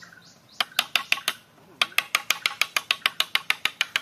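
Hammer tapping a nail into a wooden slat in quick, light strokes. A short run of taps comes first, then a brief pause, then a steady run of about six taps a second.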